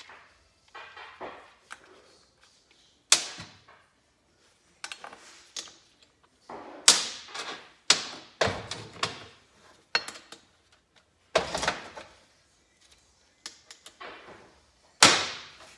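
Metal sockets and hand tools being picked up and set down on a steel workbench: a string of separate sharp clacks and clinks, each ringing briefly, spaced irregularly.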